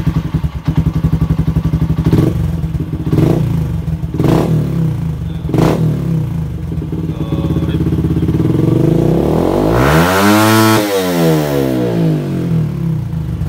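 Yamaha Sniper 150's single-cylinder four-stroke engine, breathing through an open aftermarket exhaust, running just after starting, with four quick throttle blips in the first six seconds. About eight seconds in it is free-revved in neutral in one long climb to its highest pitch about ten and a half seconds in, then drops back toward idle. This is a rev test of the maximum RPM on a racing ECU set to its second map.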